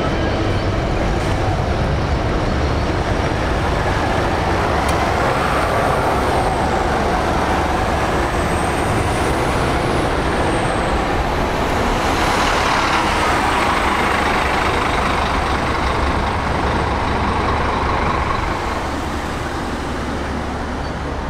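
Bus engine running loud and steady, its pitch rising and falling as the bus moves, easing off near the end.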